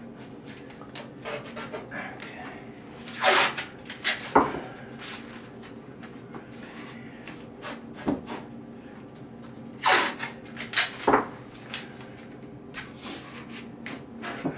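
Masking tape being pulled off the roll and torn into strips, several short tearing noises a few seconds apart, with faint rubbing as the strips are pressed onto the ceramic wall tiles.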